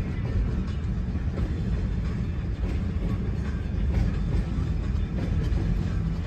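Freight train of loaded log flatcars rolling by, a steady low rumble with occasional light clicks from the wheels, heard from inside a car.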